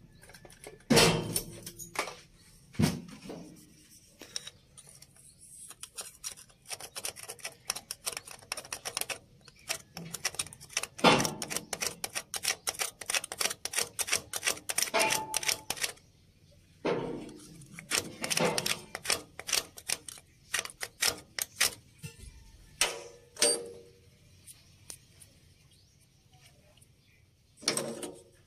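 Rapid clicking and tapping from hand tools working a hydraulic hose fitting on a dump truck's hoist control valve. A long run of quick clicks fills the middle, with shorter runs and a few single knocks around it.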